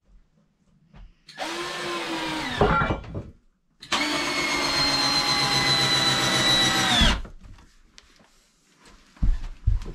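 Cordless drill driving screws into rough-cut lumber. It gives two runs of motor whine: a short one that wavers in pitch as it ends, then a steadier one of about three seconds that stops sharply. A few light knocks come near the end.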